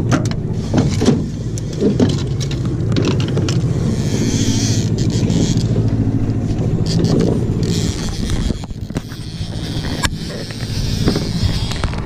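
Boat's outboard motor running steadily, with a rushing hiss of wind and water that swells and fades several times. A few clicks and knocks come from fishing gear being handled.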